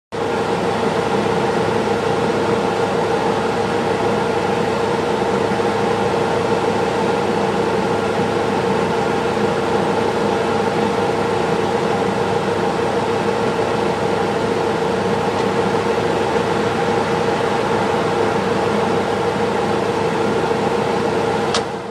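Steady mechanical hum over a constant hiss, with a sharp click near the end after which the hum drops away.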